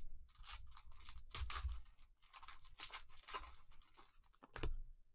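A 2019-20 Donruss Optic basketball card pack wrapper being torn open and crinkled by hand: a run of irregular crackles and rips, with one sharp loud tear near the end.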